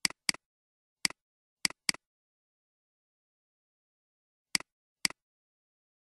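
Computer mouse clicks, seven sharp clicks, each a quick press-and-release tick. Two pairs come in quick succession, as double-clicks opening folders.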